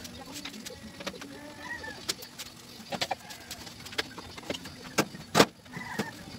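Clicks and knocks of a microwave oven and tools being handled on a bench, with one loud thump a little over five seconds in as the oven is shifted. Birds call faintly in the background.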